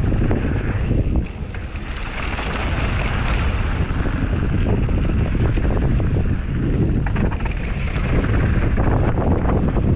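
Wind rushing over the microphone of a camera riding on a mountain bike as it descends a dirt trail. Tyres run on dirt and gravel, and the bike gives a steady stream of small rattles and clicks over the bumps.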